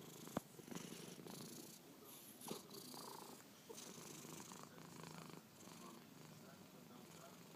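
A domestic cat snoring faintly, a low rasp that swells and fades with each slow breath, about one breath every two seconds. A single sharp click sounds about half a second in.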